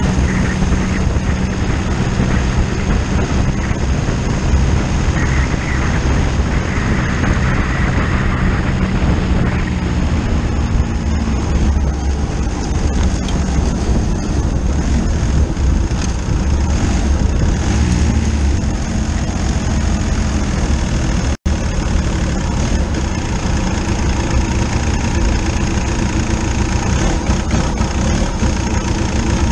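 1.2-litre three-cylinder turbo-diesel (VW Lupo 3L engine) of a converted Dnepr diesel motorcycle running steadily, its engine speed shifting a little. The sound cuts out for an instant about two-thirds of the way through.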